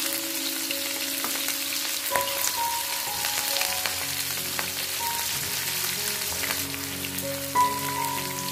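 Prawns on coconut-leaf-rib skewers shallow-frying in hot coconut oil: a steady sizzle and crackle.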